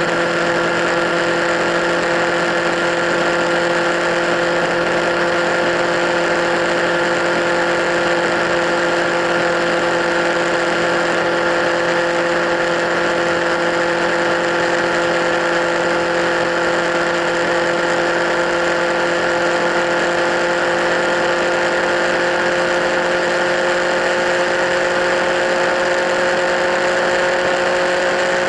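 Kawasaki Z1000 inline-four motorcycle engine with LeoVince slip-on exhausts idling steadily, its pitch creeping slightly upward.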